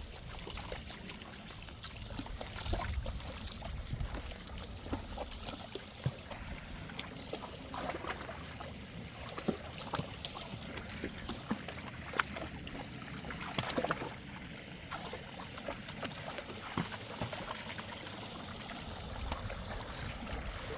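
Mountain stream trickling steadily, with scattered short splashes and clicks.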